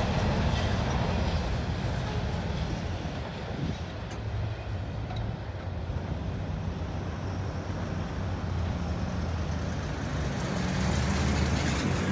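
Low engine hum of road vehicles at a railroad crossing, growing louder near the end as a pickup truck towing a trailer drives across the tracks.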